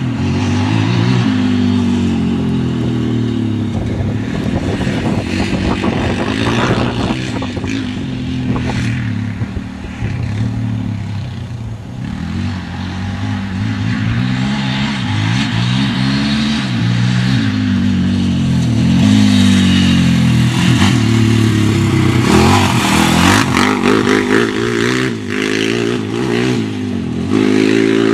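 Polaris Outlaw 525 quad's KTM single-cylinder four-stroke engine revving under way, its pitch climbing and dropping over and over as the rider accelerates and backs off. It is loudest from about two-thirds of the way through, as the quad runs close.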